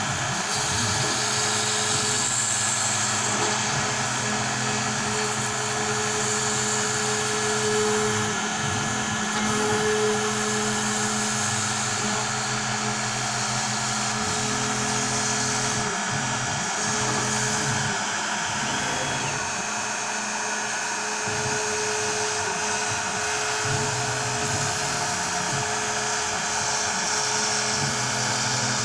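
Onefinity CNC router cutting foam board: a steady spindle whine over the hum of the drive motors, whose pitch shifts every few seconds as the machine changes direction.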